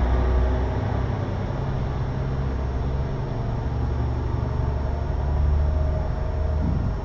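Sewer maintenance machinery running outside: a loud, steady low engine rumble with a droning hum.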